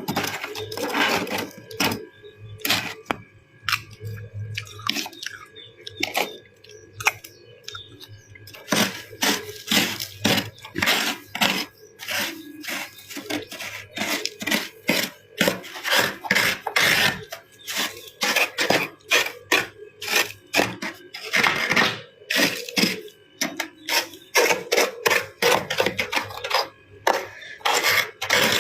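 Ice being bitten and chewed close to the microphone: many sharp, crisp crunches. They come sparsely at first, then in quick succession, several a second, from about nine seconds in.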